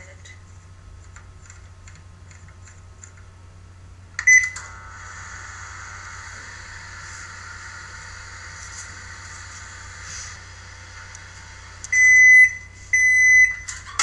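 LG microwave oven: a few faint clicks from the control dial, a beep about four seconds in as it starts, then the steady hum of the oven running. Two long beeps near the end signal that the heating cycle has finished.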